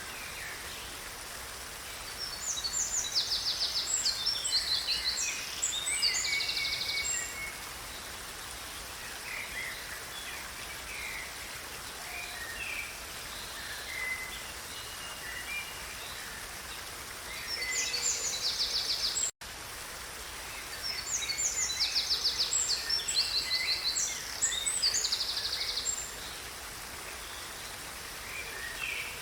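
Steady rush of river water with a songbird singing in two long stretches of fast, high trills, each about five to eight seconds. The sound cuts out for an instant about two-thirds of the way through.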